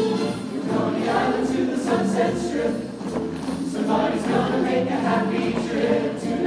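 Choir singing with instrumental accompaniment, several voice parts holding sustained notes together.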